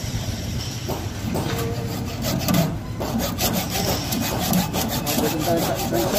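Hacksaw cutting through a heavy 250 mm² THHN stranded cable, a rapid series of back-and-forth rasping strokes.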